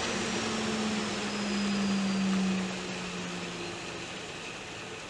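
Table saw winding down after being switched off: a hum falls slowly in pitch and fades out about three seconds in. A steady rush from a running dust collector carries on underneath.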